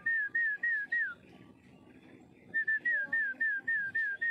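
A bird singing a phrase of about six clear, whistled notes, each slurring downward and the last falling furthest, then repeating the same phrase after a short pause.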